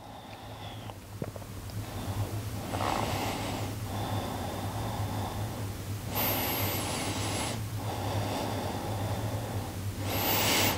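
A person breathing slowly and deeply while holding a yoga pose: three long, airy breaths about three to four seconds apart, over a low steady hum.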